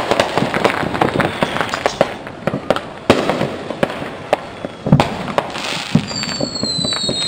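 Fireworks going off: many irregular bangs and pops, two of them louder about three and five seconds in. A high whistle, falling slightly in pitch, starts near the end.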